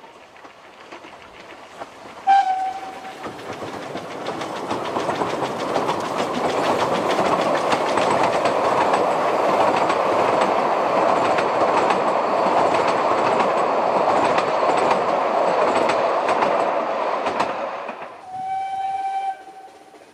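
A narrow-gauge steam train crossing a timber trestle bridge, its wheels clattering rhythmically over the rail joints, building up, holding loud for most of the passage and then fading. The locomotive's steam whistle gives a short toot near the start and a longer blast near the end.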